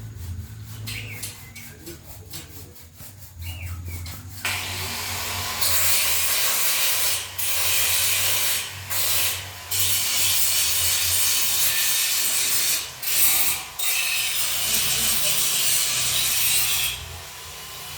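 Metalwork on galvanized square steel tubing: a quick run of evenly spaced rasping strokes, then, about four seconds in, a loud steady harsh hiss of cutting, grinding or welding. The hiss breaks off briefly a few times and stops shortly before the end.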